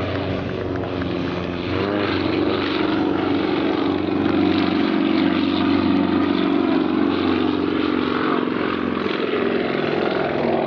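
Sukhoi Su-26's nine-cylinder M-14P radial engine and propeller running hard in aerobatic flight. The engine note bends in pitch about two seconds in, then the sound swells and eases off slightly near the end.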